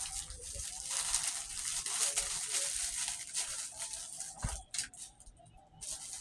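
Plastic packaging crinkling and tearing as an item is handled and opened, with a single knock about four and a half seconds in, then quieter near the end.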